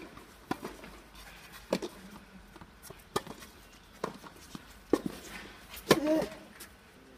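A tennis ball knocking sharply several times, about a second apart, then a serve: the racket strikes the ball hard with a short grunt from the server about six seconds in.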